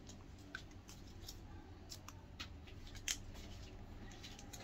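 Faint, irregular small clicks and light rustling from hands handling small items and packaging, with one sharper click a little after three seconds.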